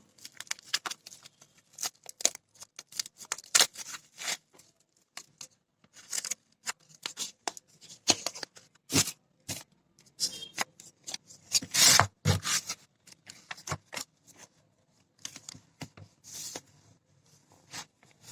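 Packaging being unboxed by hand: irregular crinkling, rustling and tearing of paper and plastic wrapping, with a longer, louder rustle about twelve seconds in.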